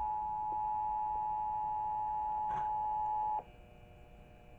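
Emergency Alert System attention signal, the steady two-tone alert heard over a radio broadcast, announcing the Required Monthly Test. It cuts off suddenly about three and a half seconds in.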